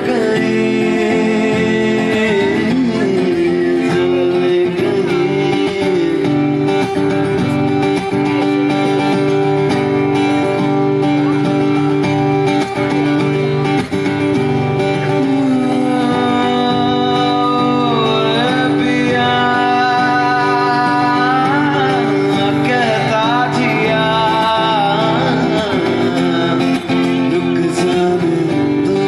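Live acoustic guitar played with steady chords, with a man singing into a microphone, clearest in the second half.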